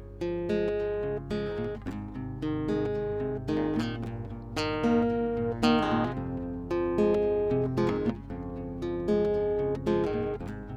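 Acoustic guitar playing an instrumental intro: chords strummed and picked in a repeating pattern, the notes ringing out between strokes.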